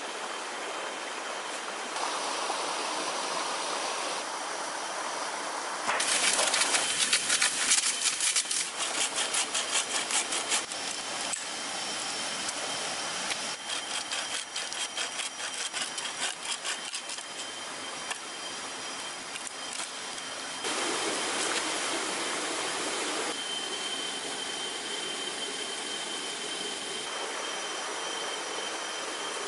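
Wooden-framed bucksaw cutting through a green branch in quick back-and-forth strokes, heard in a few separate stretches, over a steady high-pitched drone.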